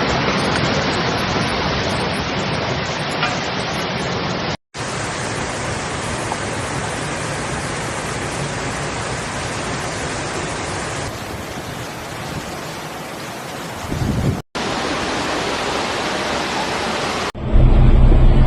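Steady rushing noise of heavy rain and water, broken by brief cuts twice. A louder low rumble starts near the end.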